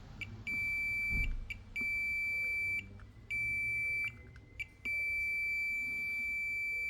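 Digital multimeter's continuity buzzer beeping as its probes are pressed to a transistor's legs on a TV power board: one steady high tone, a short blip and then four beeps of about a second each, the last held longer. A held beep means the meter reads a near-zero-resistance path between the legs.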